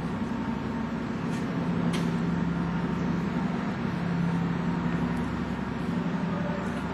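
Steady din of paper pulp processing machinery running: a low, even hum over a wash of mechanical noise.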